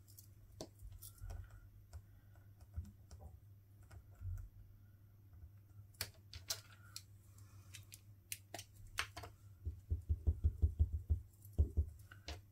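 Light clicks and taps of small stamping supplies being handled on a tabletop, with a quick run of soft taps about ten seconds in, like a small rubber stamp being dabbed on an ink pad.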